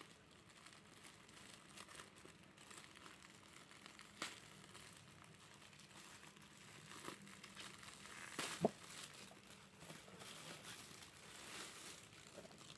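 Plastic packaging crinkling faintly as it is opened and handled, with a few sharper crackles, the loudest about eight and a half seconds in.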